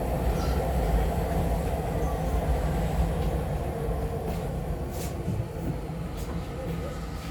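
Tokyu 5050 series electric train running, heard inside a motor car: a steady low rumble of wheels on rail with a faint hum, and a few sharp clicks in the second half.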